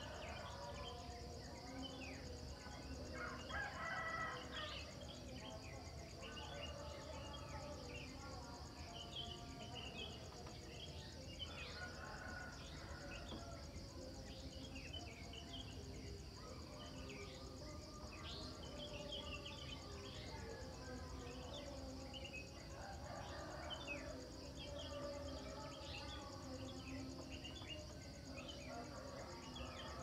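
Morning chorus of many small birds chirping over a steady high insect trill, with a rooster crowing a few times, loudest about four seconds in.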